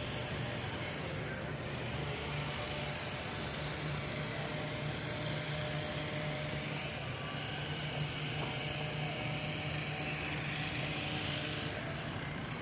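Steady engine drone with a low hum under a wash of hiss, swelling slightly in the second half.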